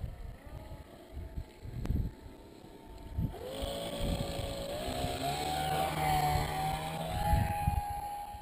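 Motor of a radio-controlled model airplane, heard as a whine that comes in about three seconds in and rises in pitch as the plane approaches, loudest near the end. Before it, only wind gusting on the microphone.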